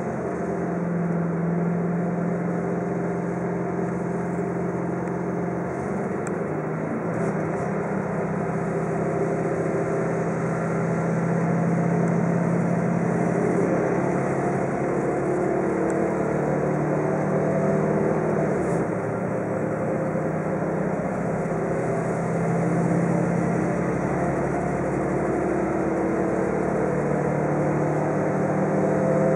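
Diesel local train heard from inside the passenger cabin while running: a steady engine drone mixed with running noise, the engine note shifting up and down a few times.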